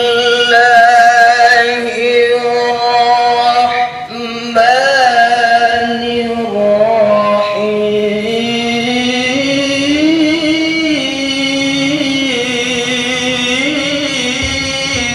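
A solo voice chanting a slow, ornamented melody in long held notes with vibrato, in the style of Quranic recitation (tilawah). A short breath breaks the line about four seconds in.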